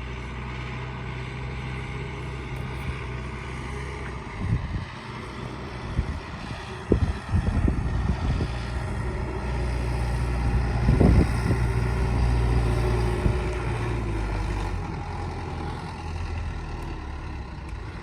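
Kubota M9540 tractor's diesel engine running steadily close by, with a few low thumps about 4, 7 and 11 seconds in.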